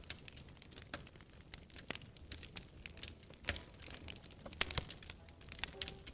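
Wood fire in a fireplace crackling, with irregular sharp snaps and pops; the loudest pop is about three and a half seconds in.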